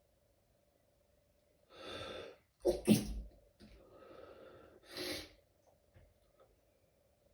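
A person's stifled sneeze: a sharp intake of breath, then a loud, clipped double burst about a second later, followed by a softer breathy exhale and another quick breath.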